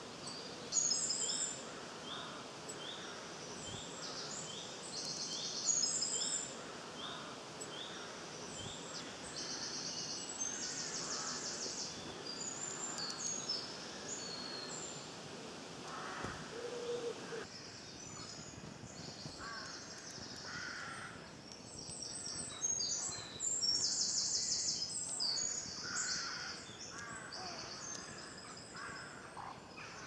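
Woodland birdsong: several small birds singing over a steady outdoor background hiss. For the first eight seconds or so, one bird repeats a short high note over and over, about three times every two seconds.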